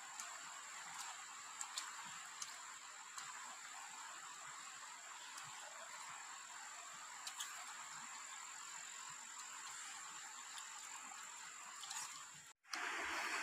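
Faint, steady chorus of insects in the forest, with one steady high-pitched tone over a hiss of calling. A few light clicks break through it. It cuts out abruptly near the end.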